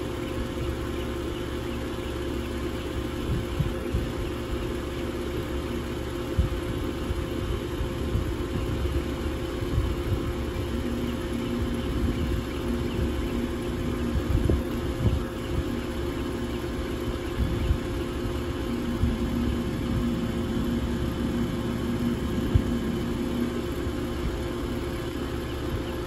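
2001 York 2-ton central air conditioner running steadily: a constant hum with several steady tones from the compressor and condenser fan, over an uneven low rumble.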